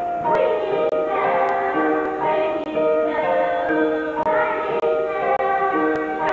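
Children's choir singing a song, with held notes that change in pitch every half second or so.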